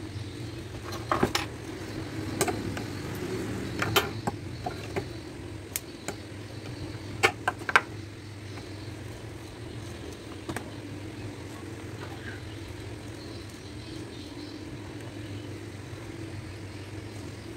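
Scattered light clicks and taps of small tools and objects being picked up and handled by hand, most of them in the first eight seconds and sharpest a little past seven seconds, over a steady low hum.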